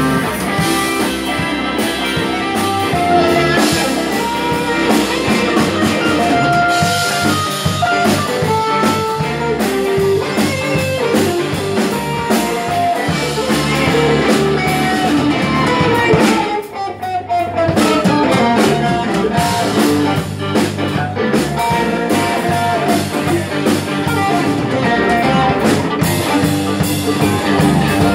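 Live band playing a blues boogie shuffle with electric guitars, drum kit and Hammond-style keyboard, recorded on a phone's microphone. About sixteen seconds in the band briefly drops back under one long falling note, then comes straight back in.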